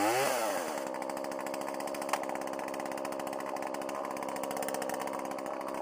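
Two-stroke chainsaw engine coming down from high revs to idle in the first second, then idling steadily, with one sharp click about two seconds in. Right at the end the engine begins to wind down.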